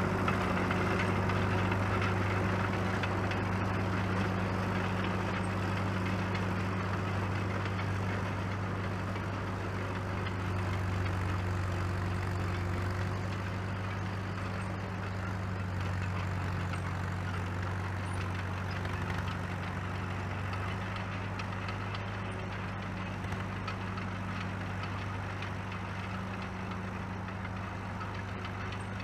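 1949 Caterpillar D2 crawler dozer's four-cylinder diesel engine running steadily as the machine travels, running as it should, and growing gradually fainter as it moves away.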